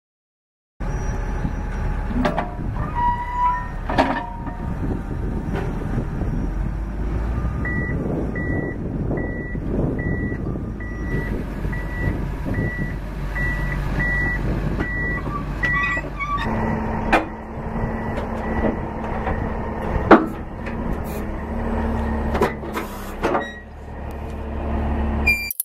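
Komatsu D65WX crawler dozer's diesel engine running, with its backup alarm beeping about twice a second for several seconds in the middle and a few sharp metal clanks.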